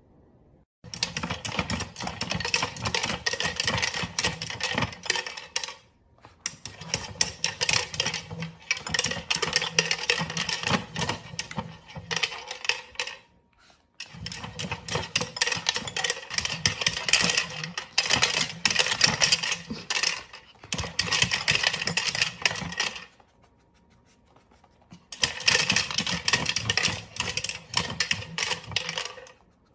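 Rapid plastic clattering and rattling of a spinning treat-dispensing wheel toy as a small dog works at it. It comes in four bursts of several seconds, with brief pauses between them.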